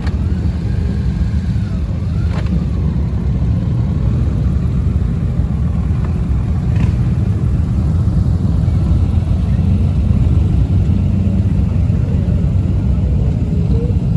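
Honda Gold Wing's flat-six engine running with a steady low rumble as the touring motorcycle pulls slowly away, getting a little louder toward the end.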